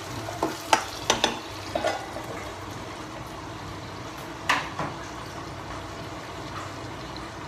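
Chopped tomatoes simmering and sizzling in a nonstick frying pan over a gas flame, a steady hiss, cooking down to soften. A spatula scrapes and clicks against the pan several times early on, then the steel lid goes on, with one louder clack about halfway through.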